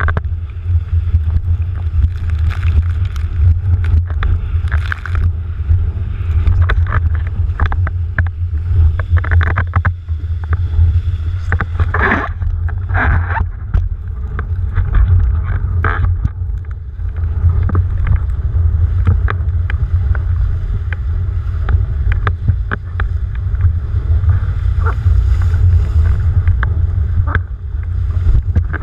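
Wind buffeting the microphone of a rig-mounted action camera on a windsurfer planing at speed, a heavy steady rumble, with water spraying and splashing off the board and chop.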